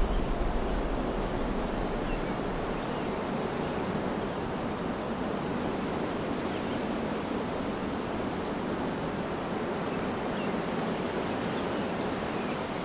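Steady rushing outdoor field ambience, with a faint high-pitched chirp repeating about twice a second.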